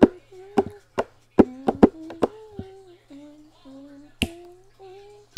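Crunching bites and chewing of hard oven-baked chunks of tapioca starch and baby powder, sharp crisp cracks in an uneven run, the loudest about four seconds in. A soft wordless tune of held notes, stepping up and down, runs underneath.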